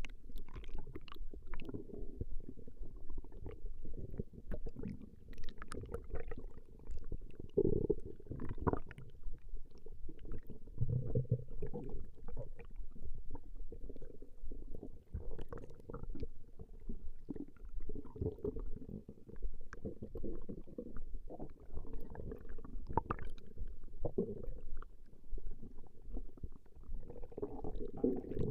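A person's stomach growling: continuous, irregular low rumbling and gurgling, with many short pops and squelches.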